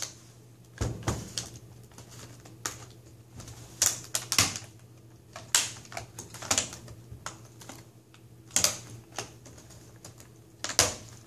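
Plastic snap-clips of a laptop's screen bezel popping loose as the bezel is pried off by hand: irregular sharp clicks and snaps, about fifteen of them, some in quick pairs.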